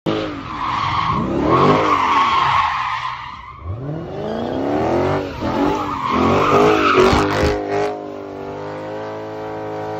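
A car doing a burnout in donuts: the engine revs up and down over and over while the spinning rear tires squeal, then it settles to a steadier engine note near the end.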